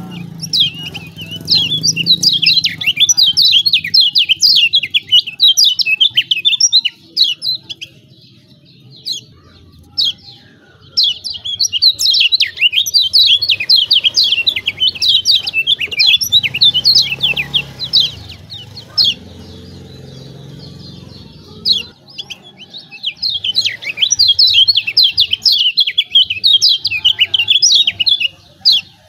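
Kecial kuning white-eye giving its rapid, excited 'ciak ciak' chattering call in three long bouts of quick high chirps, with short pauses between them.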